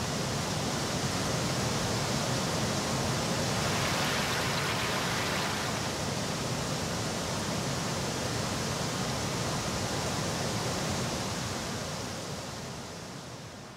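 Whitewater of the Mekong's Khone Phapheng Falls rushing steadily over rocks, a dense even noise that fades down over the last two seconds.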